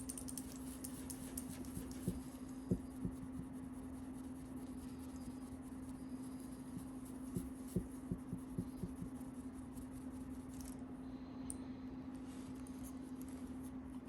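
A steady low hum with a few soft knocks and taps: two or three about two to three seconds in, then a quick cluster of five or six a little after seven seconds.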